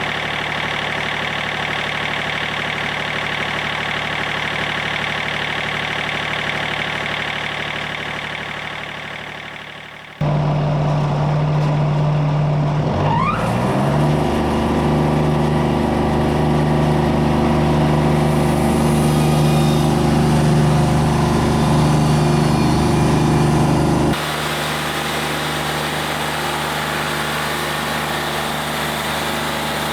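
Wood-Mizer LT40 Wide portable bandsaw mill running while sawing a white oak log. About a third of the way in the sound changes abruptly to a deeper, louder engine note that rises in pitch as the engine revs up, runs steadily, then switches back abruptly to the earlier sound near the end.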